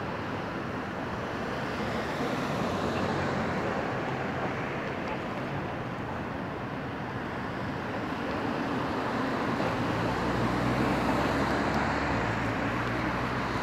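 Wind rushing over the microphone and road noise from riding an electric bike along a road with traffic, the noise slowly getting louder. A lower engine hum from a passing vehicle swells about ten seconds in.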